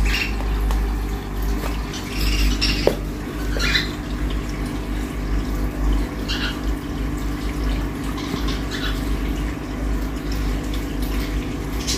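Goldfish aquarium aeration: a steady low hum with water bubbling from the air-driven bubble tubes and sponge filters, broken a few times by short splashy bursts at the water surface.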